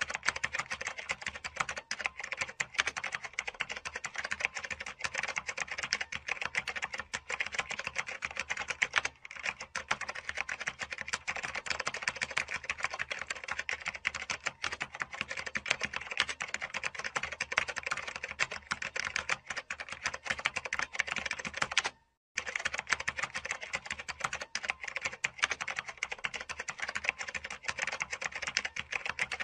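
Typing on a mechanical keyboard: a rapid, unbroken stream of key clicks, with a brief break about 22 seconds in.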